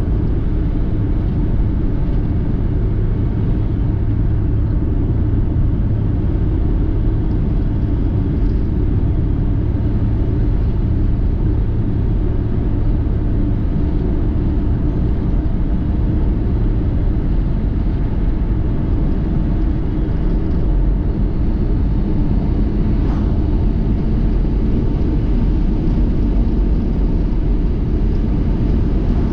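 Steady low rumble of a car driving: engine and road noise with no change in pace.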